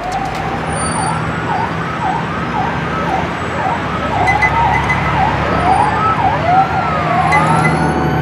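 Sound design for an animated logo reveal: a noisy swell that builds over the first few seconds over a steady low hum, with many quick tones gliding up and down like siren sweeps.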